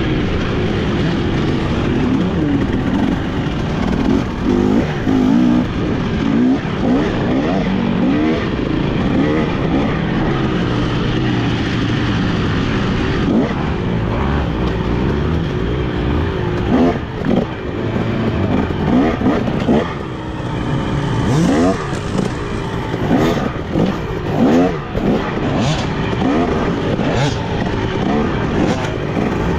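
Dirt bike engine ridden at race pace, its pitch repeatedly climbing and dropping with throttle and gear changes. From about twenty seconds in, sharp knocks and clatter come through over the engine.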